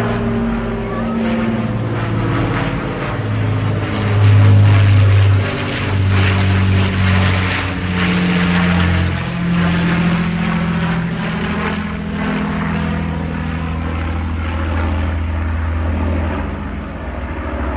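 Avro Lancaster's four Rolls-Royce Merlin V12 piston engines in a low flypast: a loud, steady propeller drone, loudest about four to five seconds in, its pitch sliding slightly lower as the bomber passes overhead and moves away.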